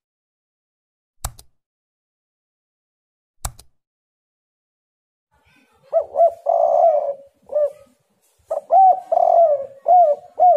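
Spotted dove cooing: two phrases of repeated low coos, starting about six seconds in. Two sharp clicks come earlier, before the cooing.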